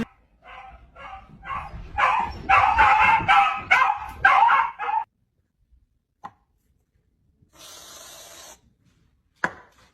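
A dog barking repeatedly, about two barks a second, louder from about two seconds in, then stopping about halfway through. A short hiss and a sharp click follow later.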